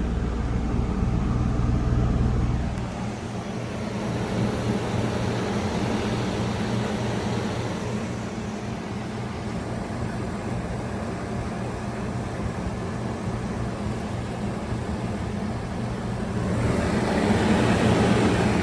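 2011 Ducane heat pump outdoor unit running with its coil iced over: steady fan airflow over a faint compressor hum. The low hum drops away about three seconds in, and the air noise grows louder near the end.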